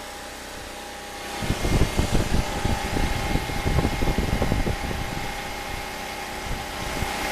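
Air conditioner running on generator power: a steady fan hum with a constant whine. About a second and a half in, an irregular low rumble joins it and the sound gets louder.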